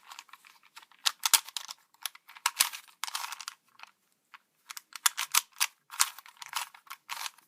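Rubik's Cube being turned quickly by hand: a rapid, irregular run of plastic clicks and clacks as the layers snap round, with a brief pause about four seconds in.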